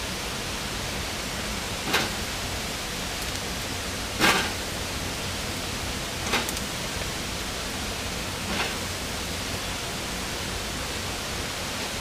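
Marinated chicken pieces laid one by one on a hot grill grate over wood coals, each giving a brief sizzle, four in all, the second the loudest, over a steady hiss.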